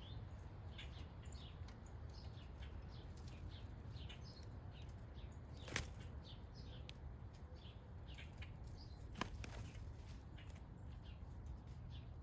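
Small songbirds giving short, high, falling chirps over and over, faint, with two sharp clicks about six and nine seconds in, over a steady low rumble.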